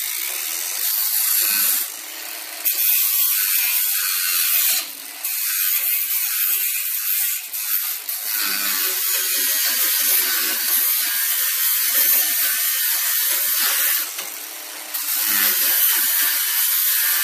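Angle grinder with a blue disc grinding along the rolled, folded-over edge of a VW bus door skin. It runs steadily, dipping briefly three times. Grinding off the fold lets the outer skin come away from the door frame, and the sound changes when the two pieces of metal separate.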